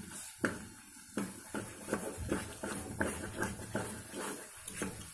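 Spatula stirring a thick, cooking green-pea halwa paste in a nonstick kadai, scraping the pan about two to three times a second.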